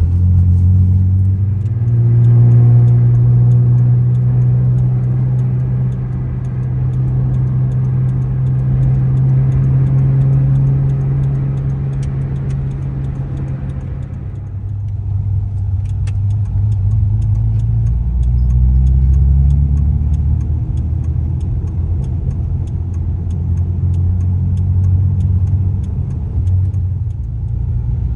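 Mitsubishi Galant V6 engine pulling away and accelerating on the road, a steady low drone with road rumble beneath. The engine note rises as it gets going, holds, drops about halfway through, then climbs again.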